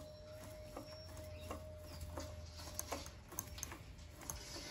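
Faint, irregular light clicks, roughly one or two a second, over a faint steady hum.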